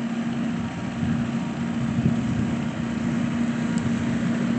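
Tractor engine running at a steady speed, with an even hum that holds one pitch.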